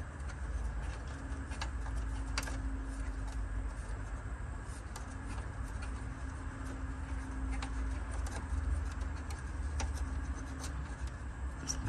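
Faint, scattered clicks and ticks from hands working at a car's dashboard trim and instrument cluster, over a steady low hum.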